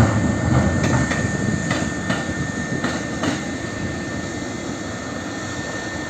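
A passing train receding: the rumble of its wheels on the rails fades away, with a few sharp clicks over rail joints in the first three seconds and a thin steady high ring.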